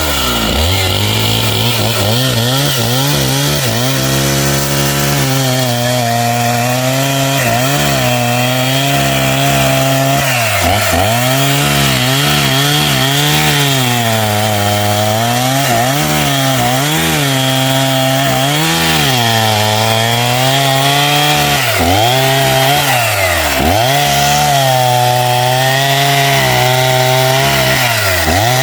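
Two-stroke chainsaw sawing wood into boards, running without a break, its engine pitch dipping and recovering again and again as the chain loads in the cut.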